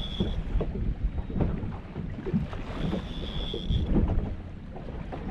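Water slapping and knocking against a small fishing boat's hull, with wind on the microphone. A thin high whine comes in twice, for about a second each time.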